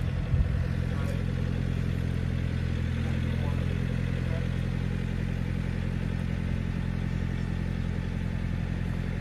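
Tow vehicle's engine running steadily at low speed while backing a travel trailer into a campsite, with one brief low thump about half a second in.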